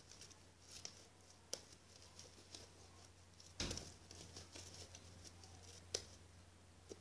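Fluffy slime made from glue, shaving cream and borax solution being kneaded and pulled between the hands: faint sticky crackles and small clicks, with one louder thump about halfway through.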